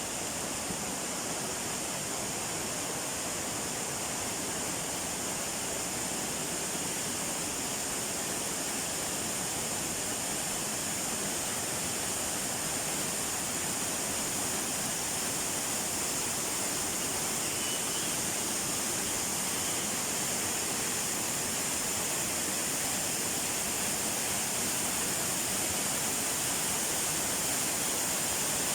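Waterfall rushing steadily: a constant, even hiss of falling water that never changes.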